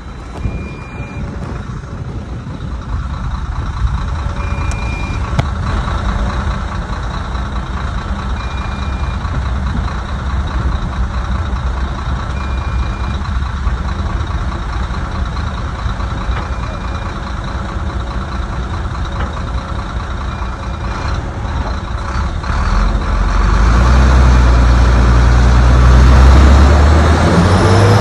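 Heavy diesel earthmoving machinery running steadily, with a short high warning beep repeating about every four seconds. About two-thirds of the way through, the engine grows much louder and deeper, as if working under load.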